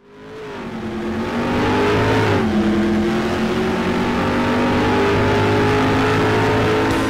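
Car engine accelerating, fading in at the start; its pitch drops once about two and a half seconds in, then holds steady.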